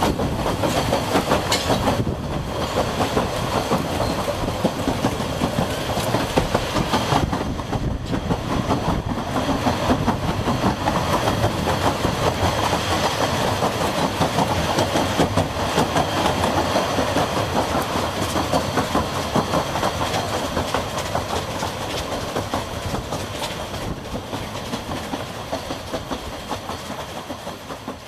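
Narrow-gauge steam train running, heard from an open coach window: steady clatter of the carriage wheels over the rail joints with the working locomotive ahead. The sound eases somewhat over the last several seconds.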